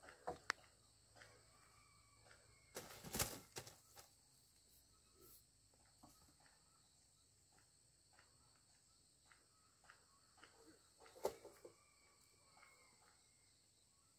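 Quiet rural outdoor background: a faint steady high hiss with scattered light knocks and rustles, the loudest about three seconds in and again about eleven seconds in.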